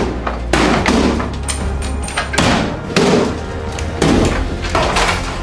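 Sledgehammer blows on an interior wall and wooden kitchen cabinets: a series of heavy thuds, about one every half second to a second, over background music with a steady bass.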